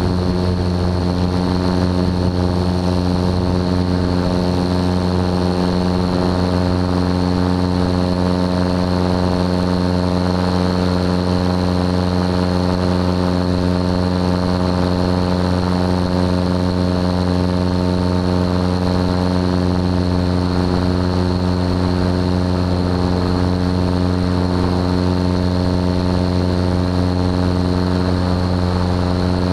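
Aviat Husky A-1C light aircraft's piston engine and propeller running steadily at takeoff power through liftoff and climb-out, a loud, even drone.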